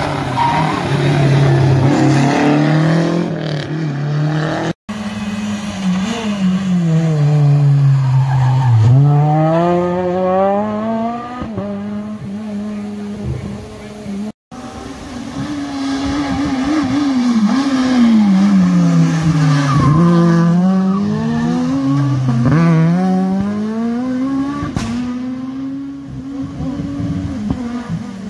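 Rally cars' engines taking a tight hairpin, revving high, the pitch dropping as they slow and then climbing again as they pull away. There are three passes, each cut off abruptly.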